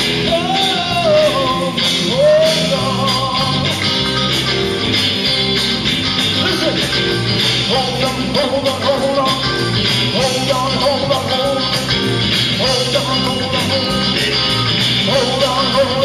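Live rock music: a man singing long, wavering held notes over electric guitar with a steady beat.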